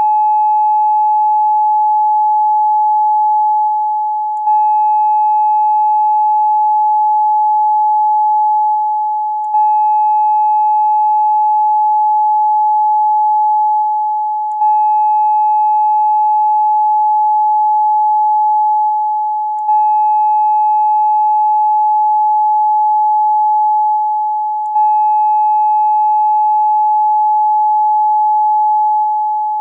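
A steady 852 Hz tone, the solfeggio frequency used for third-eye chakra meditation, with faint higher overtones. It dips slightly and restarts about every five seconds, a short loop played over and over.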